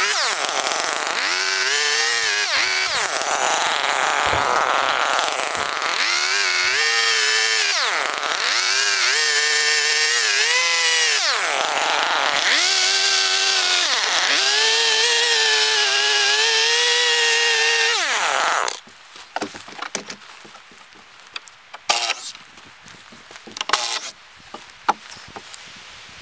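Two-stroke gas chainsaw cutting through wooden roof boards, its engine pitch rising and falling over and over as it bites into the wood and eases off. It stops about 18 seconds in, after which there are a few scattered knocks and clicks.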